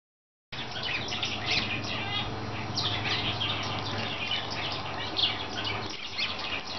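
Cut-throat finches chirping busily, many short high calls and quick chattering runs, starting suddenly about half a second in. A steady low hum runs underneath and stops near the end.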